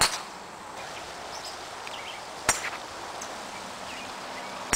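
Golf drivers striking balls off the tee: sharp cracks at the start, about halfway through and at the end, against a steady open-air background.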